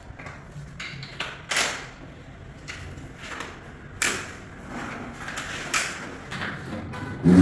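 Irregular knocks, taps and scrapes of floor-tiling work, the sharpest knocks about a second and a half and four seconds in.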